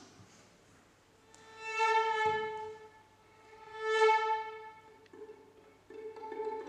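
Orchestral strings tuning. A violin sounds two long bowed notes on the same pitch, each swelling and fading. About six seconds in, several more string instruments join with overlapping sustained notes around that pitch.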